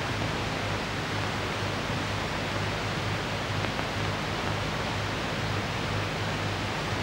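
Steady hiss with a low mains-like hum underneath, unchanging throughout: the background noise of an old film soundtrack, with no other sound in it.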